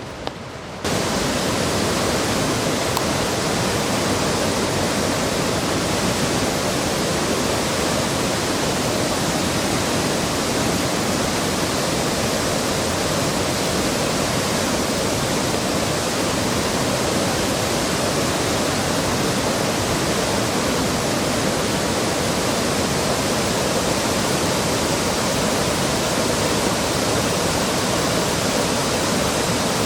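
Waterfall rushing: a steady, dense noise of falling water that cuts in abruptly about a second in.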